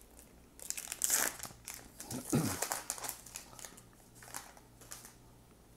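Crinkling of a baseball card pack's foil wrapper as it is torn open and handled, in several short bursts. A brief low sound, falling in pitch, comes a little after two seconds in.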